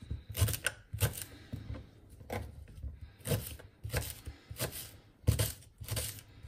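Kitchen knife chopping garlic cloves on a cutting board: sharp, irregular strikes, roughly two a second.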